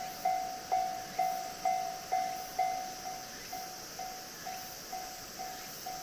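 Japanese railway level-crossing warning bell ringing, one electronic tone struck about twice a second, a little quieter from about three seconds in: the signal that a train is approaching.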